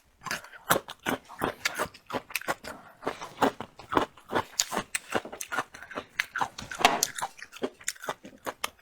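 A person chewing crunchy bamboo shoots: a steady run of wet crunches and mouth clicks, several a second.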